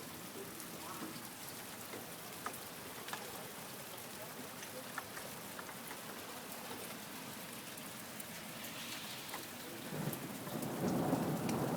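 Steady rain falling, with scattered sharp drips and patters. Near the end a louder low rumble swells in.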